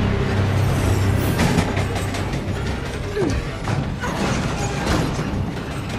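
A moving freight train of slatted livestock cars running close by, its wheels and car bodies clattering and clanking steadily, with film score music underneath.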